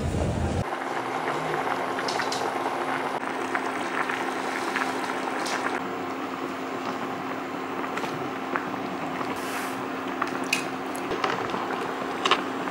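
Hotpot broth simmering on the boil, an even bubbling crackle of small pops, with a few sharp clinks of utensils near the end. In the first half-second a treadmill's low rumble cuts off abruptly.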